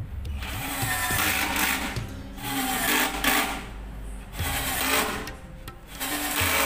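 Cordless drill driving screws up through a metal shelf bracket into a shelf board, in repeated runs of a second or two with short pauses between.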